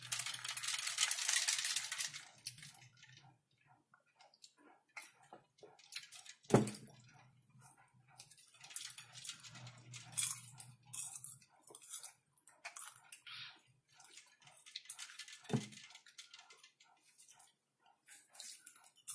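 Caramel popcorn being eaten close to the microphone: a hand rustles through the popcorn in a glass bowl for the first couple of seconds, then crunching and chewing with small clicks, broken by two sharp knocks about six and fifteen seconds in.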